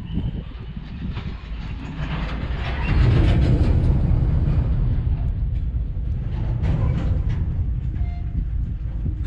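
A train running on the rails: a low rumble that swells sharply about three seconds in and stays loud, with faint clicks over it.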